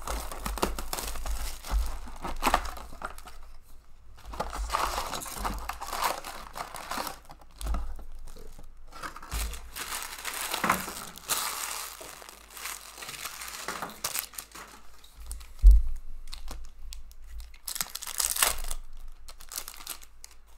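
Plastic shrink wrap being torn and crinkled off a sealed box of hockey cards, then foil card packs rustled and one torn open near the end. A single sharp knock about two-thirds of the way through is the loudest sound.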